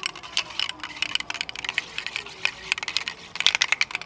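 Krylon aerosol spray-paint can being handled and shaken, its mixing ball and metal body giving sharp, rapid, irregular clicks and rattles that come in clusters.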